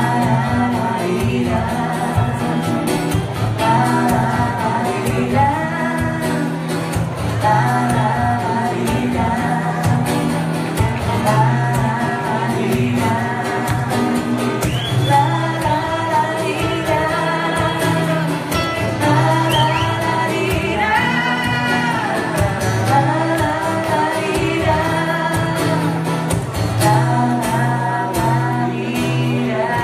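A song: a singer over guitar accompaniment, in continuous sung phrases.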